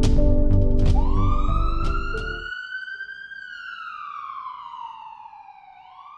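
Background music with regular percussive hits that stops about two and a half seconds in. Overlapping it, from about a second in, a siren wail rises and then slowly falls, and the next wail starts to rise near the end.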